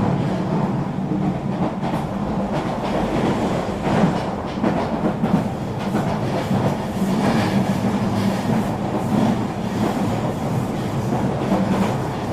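Electric regional train running along the line: a steady rumble of wheels on rails, with occasional clicks as the wheels pass over rail joints.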